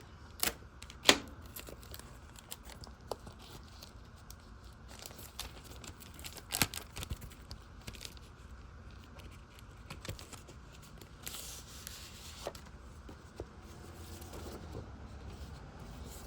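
Plastic packaging crinkling and tearing as a model kit's decal sheet is unwrapped and handled. Scattered sharp clicks and rustles come through it, the sharpest about a second in, with a longer rustle around eleven seconds in.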